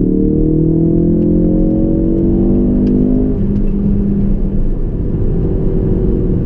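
Ford Focus RS's turbocharged 2.3-litre EcoBoost four-cylinder pulling hard at full throttle in third gear on a Cobb Stage 1 tune, heard from inside the cabin, its note rising steadily in pitch. A little over three seconds in the throttle is lifted and the engine note drops away, leaving road and tyre rumble as the car coasts.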